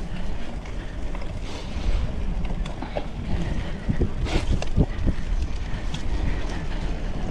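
Wind buffeting the microphone over the rumble of a cyclocross bike's tyres rolling across bumpy dry grass and dirt, with a few knocks and rattles from the bike about four to five seconds in.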